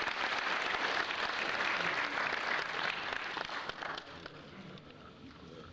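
Congregation applauding, a dense spread of many hands clapping that dies away about four seconds in.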